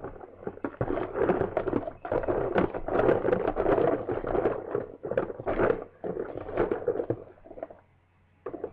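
Rummaging and rustling while handling small plastic toy figures, a steady run of clicks and clatter that stops near the end.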